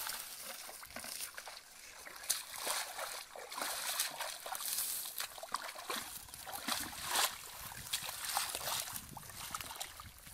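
Bare feet wading through shallow muddy water, with irregular squelches and small splashes at each step.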